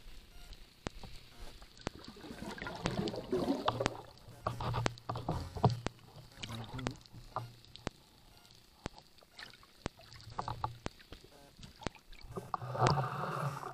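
Underwater sounds around a spearfisher's speargun: scattered sharp clicks with bubbly, rustling movement noise, growing louder in the last second.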